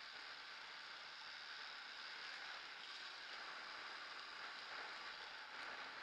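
Steady rushing hiss of a motorcycle travelling along a wet, muddy dirt road in the rain: tyre spray and air noise, with no clear engine note.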